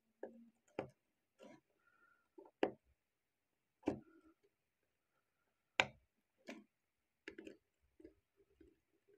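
Light, irregular clicks and taps from a steel wristwatch being handled: fingers working at the case and its steel link bracelet. There are about eight sharp clicks, the loudest about six seconds in.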